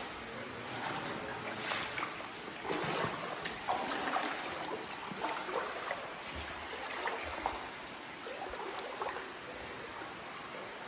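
Someone wading through shallow cave water: irregular sloshes and splashes over a steady hiss of water.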